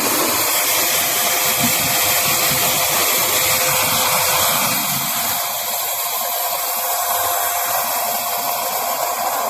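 Powered high-pressure cleaning jet blasting dirt out of a clogged AC outdoor unit's coil: a steady loud hiss over a constant motor whine.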